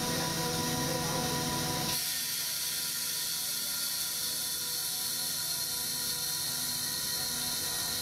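PSA oxygen generation plant running: a steady machine hum with several held tones, which drops away abruptly about two seconds in, leaving a steady high hiss.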